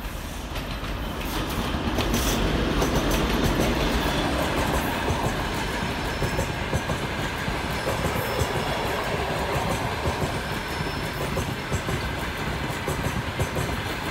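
TEP70 diesel passenger locomotive passing close under power as it accelerates, loudest about two to four seconds in. Then comes the steady rumble and clickety-clack of the passenger coaches' wheels rolling past over the rail joints.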